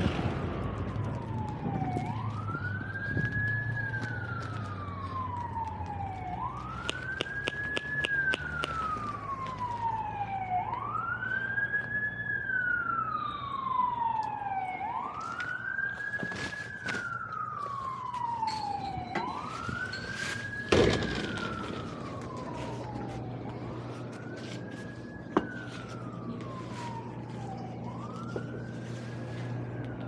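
Emergency vehicle siren wailing. Each cycle climbs quickly and slides slowly back down, repeating about every four seconds, and it gets fainter in the last part. A sharp knock about 21 seconds in.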